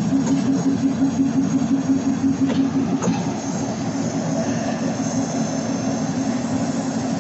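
Container freight train rolling past on the next track, its wheels giving a low rumble with a regular pulsing beat that weakens after about three seconds as the last wagon moves away.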